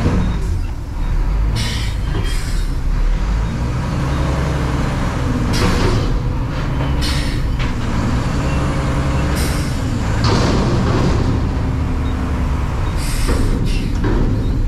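Garbage truck's diesel engine running steadily, with repeated short bursts of hiss over it.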